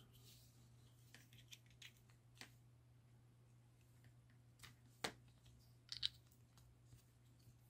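Faint, scattered clicks and taps of small plastic caps being handled and pushed onto a plastic USB SD card reader. The sharpest click comes about five seconds in, with a short cluster about a second later.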